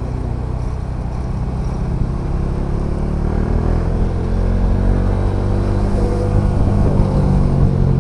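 Bajaj Dominar 400 motorcycle's single-cylinder engine running steadily while riding, with road and wind noise. It grows a little louder over the last few seconds.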